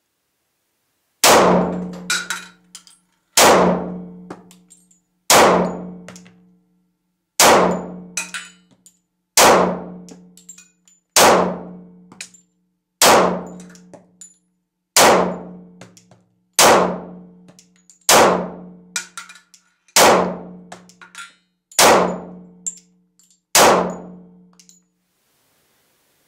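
Glock 23 Gen4 pistol in .40 S&W fired in slow deliberate single shots, thirteen shots about two seconds apart. Each shot rings out with a long echo in a brick-vaulted underground cellar range.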